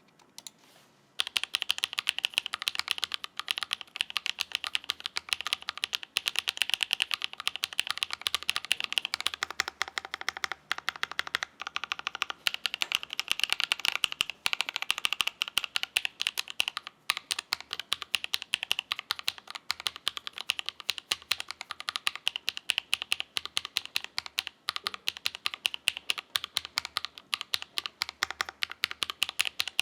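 Fast, continuous typing on a Melgeek Mojopad keyboard fitted with AngryMiao Icy Silver linear switches lubed with Krytox 205g0, on an aluminium plate with case foam. It starts about a second in as a rapid run of clicky keystrokes.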